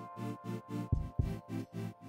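Background music with a steady pulsing beat, about four pulses a second, with a stronger hit roughly once a second.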